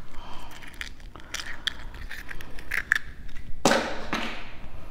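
Eggs being cracked against a mixing bowl: small clicks and crackles of shell, then one sharp crack of an egg struck on the rim about three-quarters of the way through.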